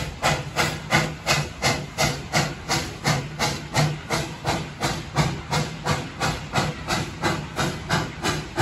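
Puffing Billy's narrow-gauge NA class steam locomotive 12A working steam, its exhaust chuffing in an even beat of about three a second over a steady hiss of steam.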